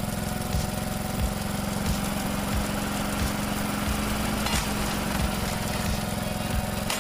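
Engine powering a gear-driven log splitter, running steadily at an even pitch, with a few faint knocks from the machine working.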